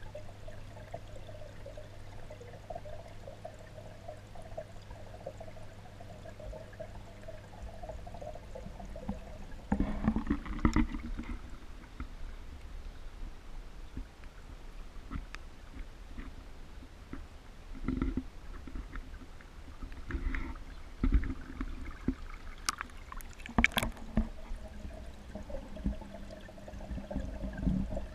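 Underwater pond sound: a steady low hum, then from about ten seconds in, irregular knocks, bumps and sloshing water as the camera is lifted out and moved about, with a loud bump and splash near the end.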